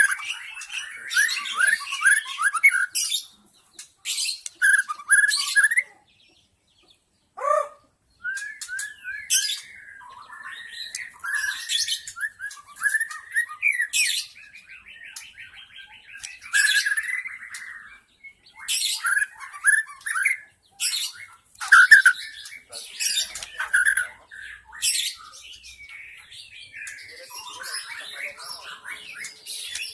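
White-rumped shama singing: a varied run of quick whistled phrases and sharp chattering notes with short pauses, including a brief silence about seven seconds in and a buzzy rattle midway.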